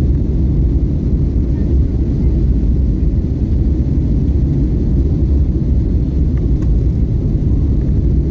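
Steady low rumble of a jet airliner's engines and rushing air, heard inside the passenger cabin as the plane climbs after takeoff.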